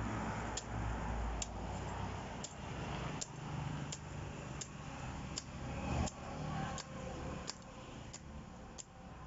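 Machete hacking at a moringa stem: a steady run of sharp chops, about one every 0.7 seconds.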